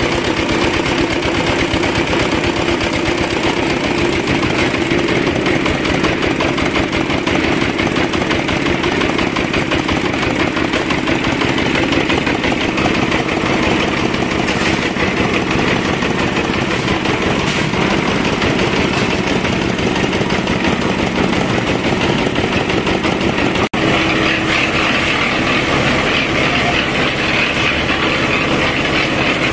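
Single-cylinder diesel engine running steadily, with a fast even beat, driving the winch of a concrete hoist. About 24 s in the sound cuts to a concrete mixer turning and tipping wet concrete, a brighter clatter.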